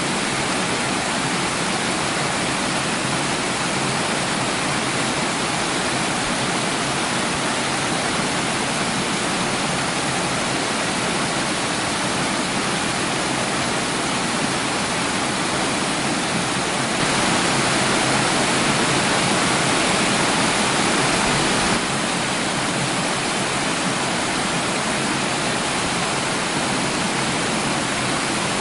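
Waterfall: water falling and splashing in a steady, full rush. About two-thirds of the way through it grows a little louder for about five seconds, then drops back.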